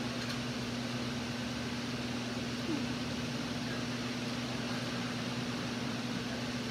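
Steady, unchanging machine hum with an even hiss over it, like a running appliance in the room.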